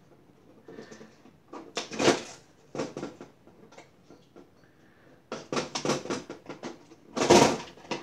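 A screwdriver and small metal parts clicking and knocking against the sheet-metal chassis of an IBM pSeries server while connector cards are pried out. The clicks are scattered at first, then come in a quick run, with one louder clatter near the end.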